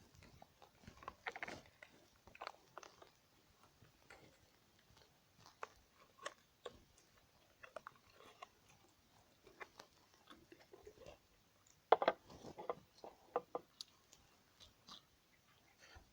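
Slime being squished and worked by hand: a scatter of short, wet clicks and pops, busiest about twelve seconds in.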